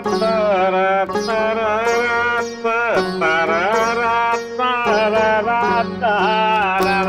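Background music: a gliding, sliding melody over a steady low drone.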